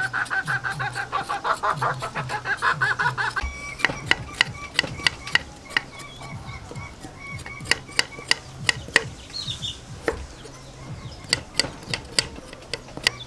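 A chicken clucking in rapid pulses for the first three seconds or so. Then a cleaver scrapes the skin off a galangal root and knocks against a wooden chopping board in many sharp, irregular clicks.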